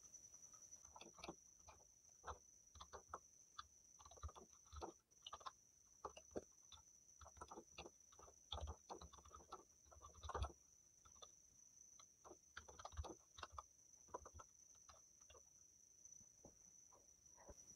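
Fast, irregular typing on a compact wired Lapcare computer keyboard: faint key clicks in quick runs, loudest about ten seconds in, over a faint steady high whine.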